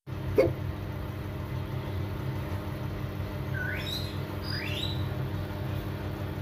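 Two short peeps, each rising in pitch, from a blue-eyed cockatoo chick hatching from its cracked egg, over a steady low mechanical hum. A sharp click comes just after the start.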